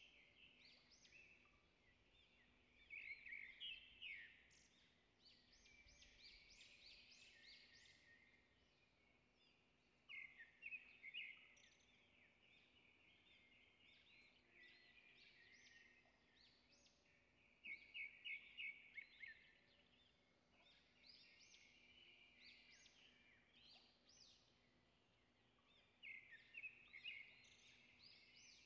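Faint birdsong: clusters of rapid, high chirping notes repeating every few seconds.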